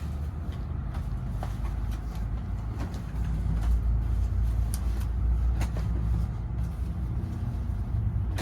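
Low, steady rumble of a road vehicle's engine, swelling about three seconds in, with light scattered clicks over it.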